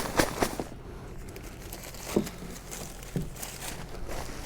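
Packaging crinkling and rustling in irregular short crackles as a new paramotor wing's box and bags are opened and handled.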